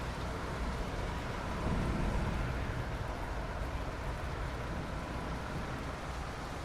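Steady rain hiss with a low rumble underneath, which swells briefly about two seconds in.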